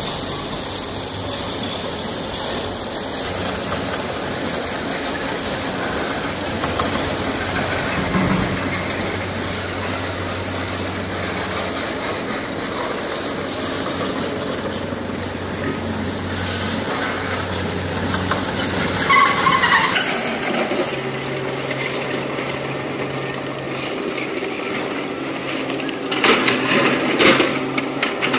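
Tata Prima dump truck's diesel engine running steadily as the truck drives across the quarry, with a brief squeal about nineteen seconds in. Then the SANY SY225 excavator's diesel engine runs steadily, and near the end its steel bucket scrapes and clatters against broken rock.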